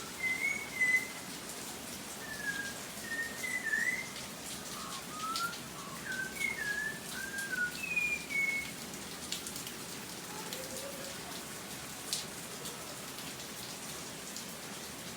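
Birds whistling short gliding notes over a steady hiss of rain; the whistles stop about nine seconds in.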